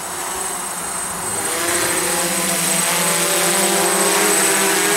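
DJI F550 hexacopter's six motors and propellers buzzing as it hovers, a steady pitched drone that wavers slightly as the motors adjust. It grows louder about a second and a half in.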